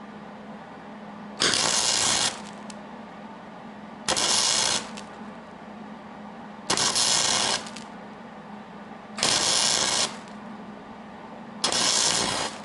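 MIG welding arc on aluminum from a Millermatic 175 run through a standard MIG gun, not a spool gun: five short bursts of crackling hiss, each about a second long and about two and a half seconds apart, as the welder lays a stitch weld.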